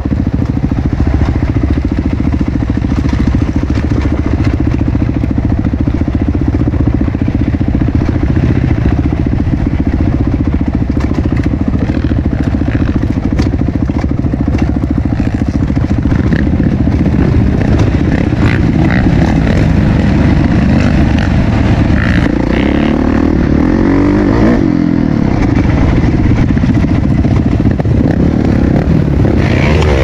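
Dirt bike engine running steadily under throttle on a trail, heard from the rider's own bike. The revs rise and fall repeatedly in the second half, and there are scattered clicks and clatter over the engine.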